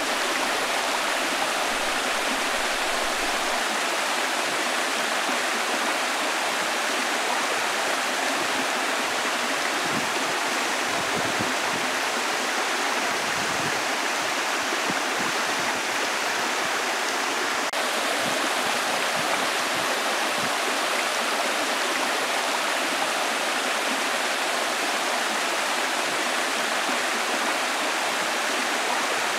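Steady rushing water, an even hiss with no let-up.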